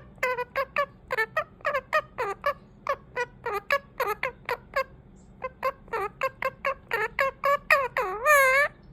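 Indian ringneck parakeet chattering in rapid short squawks, about five a second, breaking off briefly around five seconds in and ending in a few longer wavering calls.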